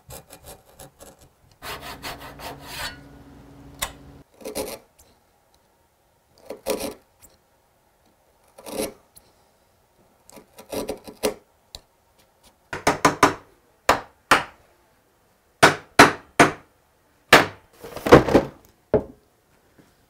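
Sharp bench chisel paring cherry by hand, cleaning bridle-joint cheeks back to the shoulder lines. A longer rubbing stretch with a faint hum comes about two seconds in, then a run of short scraping cuts, a couple of seconds apart at first and coming in quick clusters in the second half.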